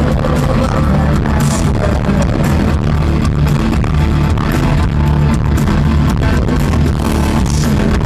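Live rock band playing loud, with electric guitar, bass and a drum kit, heard through a phone's microphone in the crowd.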